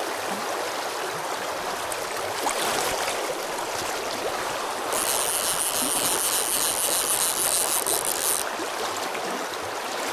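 Shallow river rushing steadily over stones, with a fly reel's click ratchet buzzing for about three seconds in the middle while a hooked fish is played.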